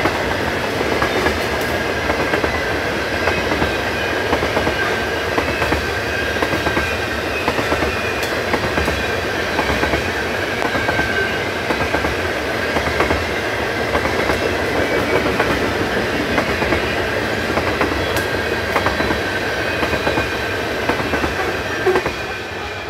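Freight train of tank cars rolling past: a steady rumble with the clickety-clack of wheels over rail joints and a faint, thin high squeal from the wheels. The sound falls away near the end as the last car passes.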